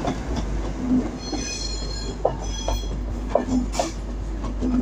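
TransPennine Express Class 185 diesel multiple unit moving out along the platform, its wheels clicking irregularly over the rail joints over a low rumble, with a high-pitched squeal from the wheels from about one to three seconds in.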